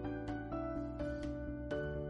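Background music: a gentle plucked-string melody, its notes changing about every half second.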